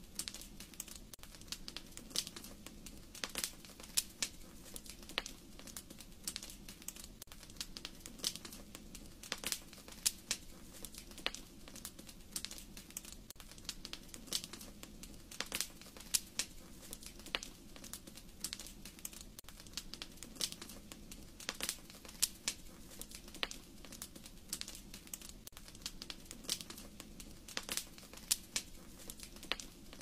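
Wood fire crackling in a fireplace: irregular sharp pops and snaps, several a second, over a low steady hum.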